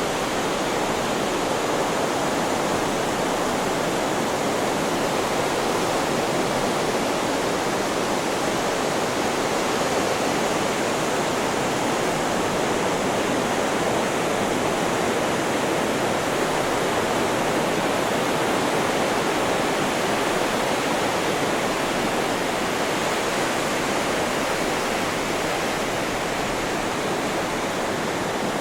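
Steady white noise: an even, unbroken rushing hiss that holds the same loudness throughout, with no swell or break of waves in it.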